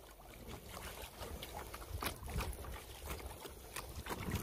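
Kayak paddle working the river: faint, irregular splashes and drips of water as the blades dip, over a low rumble.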